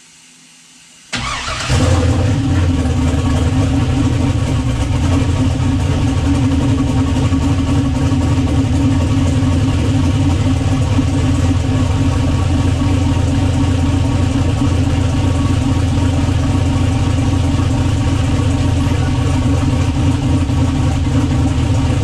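A 6.0 LS V8 engine starts about a second in, right after fuel rails and injectors have been reinstalled to cure a misfire, and settles into running steadily.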